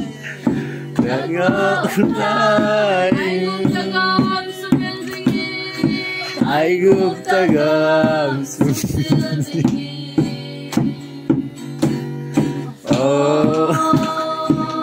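A group of voices singing a song together to a strummed acoustic guitar, with a steady clap about twice a second keeping the beat.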